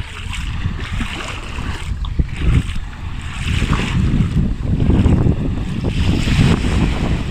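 Sea waves washing onto a sandy beach, their hiss swelling and ebbing every few seconds, with wind buffeting the microphone in a steady low rumble.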